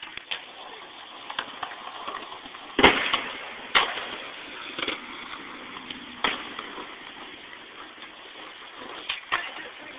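Skateboard wheels rolling, with one loud sharp clack of the board about three seconds in, the pop and landing of an ollie, followed by several lighter knocks.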